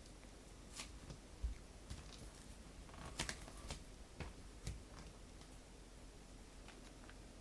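A few faint, scattered clicks and taps, about six in all and unevenly spaced, against quiet room tone.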